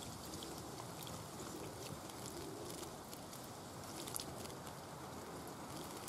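Great tit bathing in a shallow pool: soft, scattered splashing and dripping ticks of water over a steady faint background hiss, with a few stronger splashes about four seconds in.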